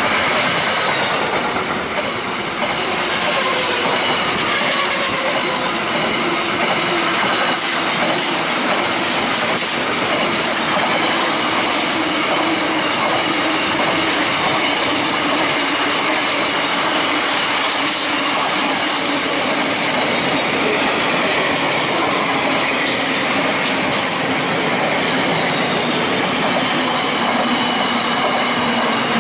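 Container freight train's wagons passing close at speed: loud, steady wheel-on-rail noise with several high, thin ringing tones from the wheels on the rails.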